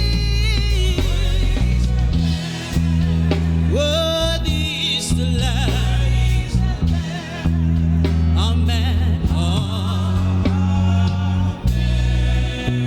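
Gospel worship music: a solo voice singing with vibrato over sustained keyboard chords and a deep bass line.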